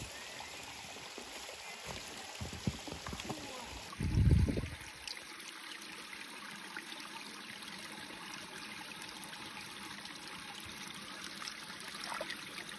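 Shallow mountain stream trickling steadily over pebbles, with a brief low thump about four seconds in.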